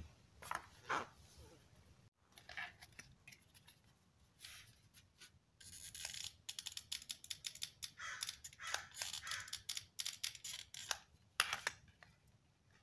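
Faint handling noise: mosquito netting rustling and crinkling under the hands, with scattered small clicks and taps from working a hot glue gun and magnets on a plywood board. The rustling and clicking come thickest in the second half.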